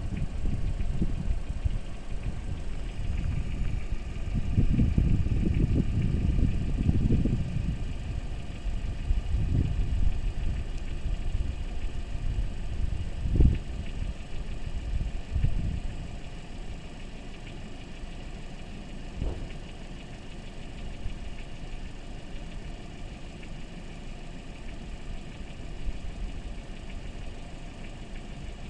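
Toyota Corolla E150 engine idling with a knock from the engine whose cause the owner is asking about. A steady low rumble, louder in the first half, with a few sharp single thuds around the middle.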